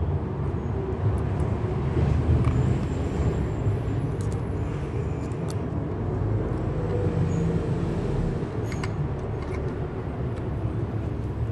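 Steady low rumble of motor-vehicle traffic, with a few faint clicks from the juicer's plastic motor housing being handled.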